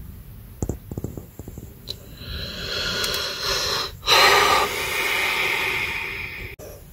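A person breathing out heavily close to the microphone in two long breaths, with a few light clicks about a second in.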